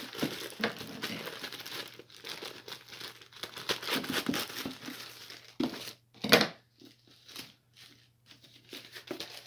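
Black plastic poly mailer crinkling and rustling as it is handled and cut open with scissors, with two louder sharp sounds near six seconds in, then lighter rustling as the bag is pulled open.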